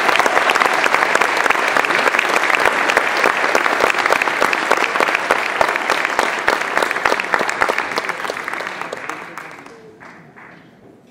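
Audience applauding: dense, steady clapping that fades away over the last few seconds.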